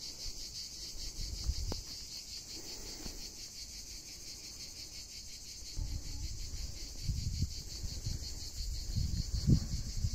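A steady chorus of insects chirring in the trees, a fast even pulsing that never stops. Under it, irregular low rumbling comes and goes, heavier in the last few seconds.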